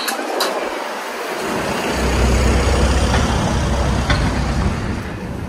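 Street traffic noise, with a low engine rumble building about two seconds in as a heavy vehicle passes, then easing off.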